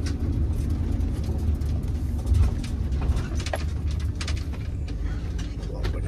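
Low, steady rumble of a work van's engine and road noise, heard from inside the cab while it drives.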